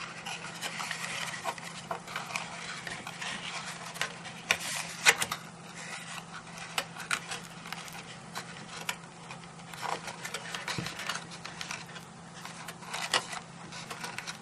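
Scattered small clicks and light rustling from hands trimming ribbon ends with scissors and handling a card box, over a steady low hum.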